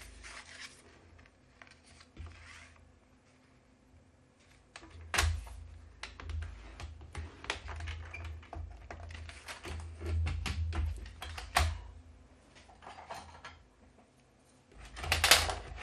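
Paper trimmer scoring cardstock: the card is slid into place and the scoring blade's carriage is pushed along the plastic track. This gives a run of clicks and scrapes, busiest from about five seconds in to about twelve, with sharper taps near the start and the end of that stretch.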